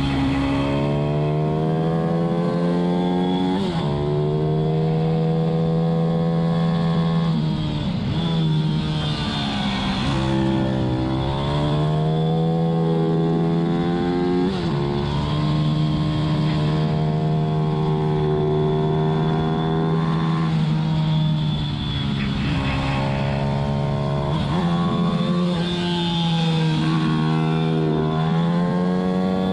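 Onboard sound of a racing pit bike's single-cylinder four-stroke engine under hard riding, its revs climbing and then dropping sharply again and again as the rider rolls off and gets back on the throttle through a lap.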